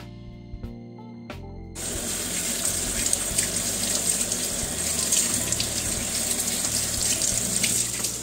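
Doughnuts deep-frying in hot oil in a frying pan: a steady crackling sizzle that comes in suddenly about two seconds in, over soft background music.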